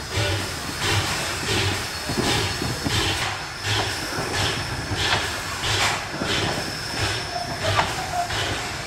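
Two-foot gauge Hudswell Clarke steam locomotive working hard on a steep grade, its exhaust beating evenly about twice a second over a steady hiss. A brief squeal comes near the end.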